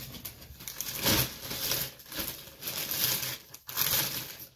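A yellow plastic shopping bag crinkling and rustling in irregular bursts as it is handled.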